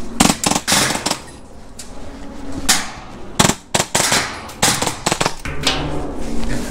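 Airsoft gunfire: sharp cracks and short bursts coming at irregular intervals, the loudest near the start and around the middle.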